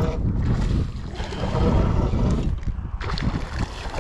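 Wind buffeting the microphone: a heavy, uneven low rumble that rises and falls in gusts.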